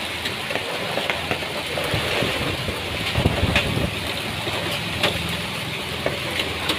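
Heavy rain driven by strong wind, a steady hiss of downpour with scattered sharp ticks of hailstones striking. A low rumble of wind gusts comes through in the middle.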